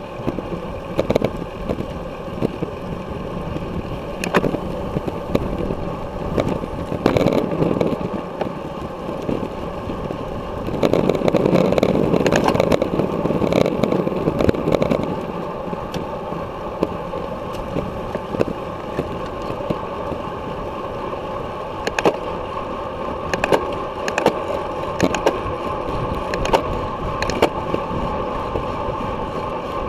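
Wind rushing over the microphone of a camera on a road bicycle riding at race speed, with road and tyre rumble underneath. Scattered sharp clicks and knocks come from the moving bike, and the wind rush swells for a few seconds about a third of the way in.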